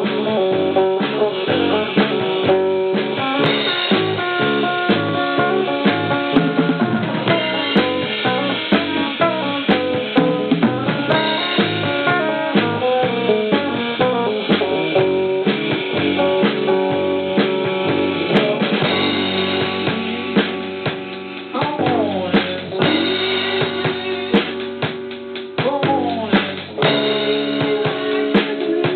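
A band playing a rock song together, drum kit and guitar to the fore, with steady snare and bass-drum hits under strummed chords. It is heard off an old practice tape, dull with the highs cut off.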